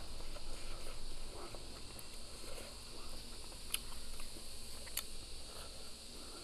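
Close-up eating sounds: fried chicken drumstick meat being pulled from the bone by hand and chewed, with soft wet mouth noises and two sharp clicks in the middle.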